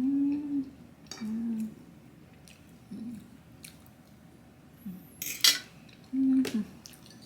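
A person eating a hotdog, giving five short closed-mouth "mm" hums while chewing, with scattered light clicks of dishware and one sharper clack about five and a half seconds in.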